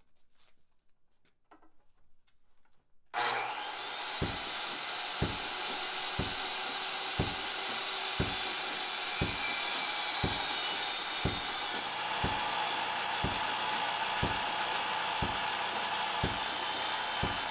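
Milwaukee 10-inch circular saw with a West System scarfing attachment starting about three seconds in and then running steadily through 3/4-inch okoume plywood in a slow scarf cut, with a steady high whine. A low thump comes about once a second through the cut.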